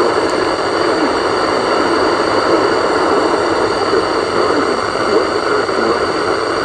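Steady radio static: an even hiss, strongest in the middle range, on a weather-radio broadcast with no voice or tone.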